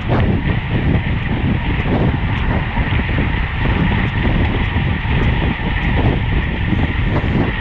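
Steady wind rushing over the microphone of a camera on a road bike moving at race speed.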